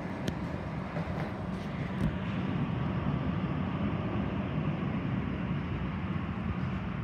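Airbus A320 jet engines at taxi idle, heard muffled through terminal glass as a steady low rumble, with a few light ticks in the first two seconds.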